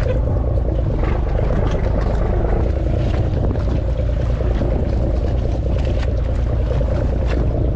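Fishing boat's engine running steadily at idle, a constant low rumble, with light scattered ticks on top.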